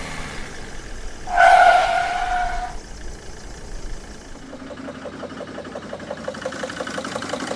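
Sprinter van's diesel engine idling. A loud steady tone sounds for about a second and a half, starting about a second in. From about four and a half seconds in, an even clatter of about five ticks a second runs over the idle, on an engine the owner calls a little rough, smoking heavily with no fault codes.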